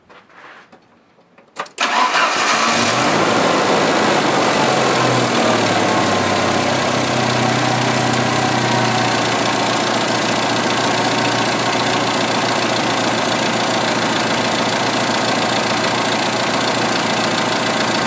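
A 1986 Jeep Cherokee XJ's 2.5-litre inline-four engine starts about two seconds in, catching almost at once, then runs at a steady idle with its engine computer just reset.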